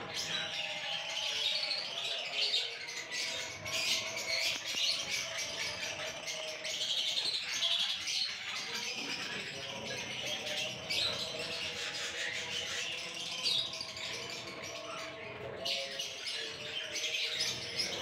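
A flock of albino red-eyed lovebirds chirping continuously, many high, short calls overlapping into a busy chatter.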